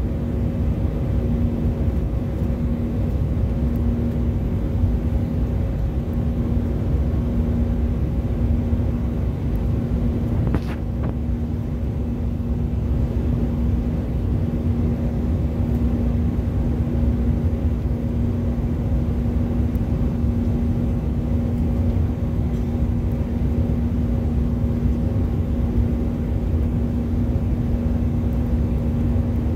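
Cabin noise of an Airbus A319 climbing after takeoff, heard from a window seat beside the engine: a steady jet-engine drone and airflow rush with a steady low hum.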